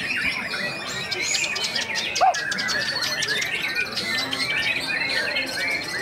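White-rumped shamas singing over one another: a dense mix of varied whistled phrases and chirps, with a fast, even, high trill starting about three-quarters of the way through.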